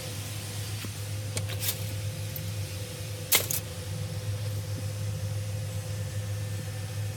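Steady low drone of a vehicle running, with a few light clicks and one sharp click a little over three seconds in.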